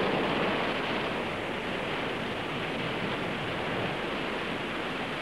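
Ocean surf breaking on a beach: a steady rushing wash of waves.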